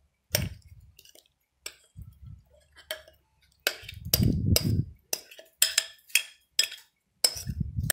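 A spoon clinking and scraping against a glass bowl as thick, oily pepper-paste sauce is scooped out into a steel bowl, with a few dull thuds as lumps of sauce drop onto the bulgur.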